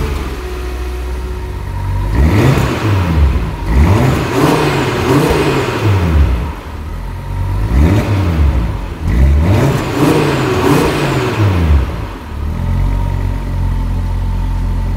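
2022 Audi RS3's 2.5-litre turbocharged five-cylinder engine, revved hard several times while standing still: it idles, then rises and falls in pitch in two bursts of revs, and settles back to a steady idle near the end.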